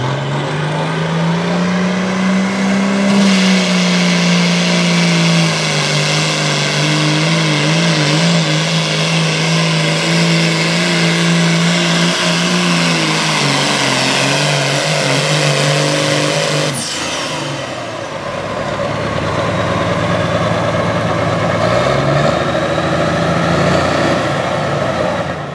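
John Deere 4430 classic super stock pulling tractor's turbocharged six-cylinder diesel running hard at full throttle while pulling a weight sled, its note climbing in the first few seconds and then holding. About seventeen seconds in the engine note drops suddenly with a high whistle falling away, and the engine keeps running at a lower pitch until the sound fades out at the end.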